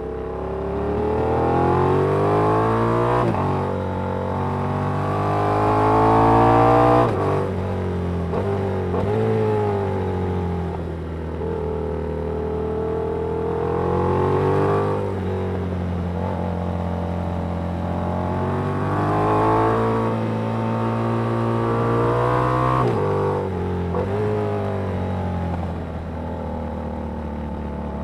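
Yamaha MT-07's parallel-twin engine through a Danmoto aftermarket exhaust, heard onboard while riding. The revs climb under throttle and then drop sharply several times, loudest about seven seconds in, easing off and pulling again between corners.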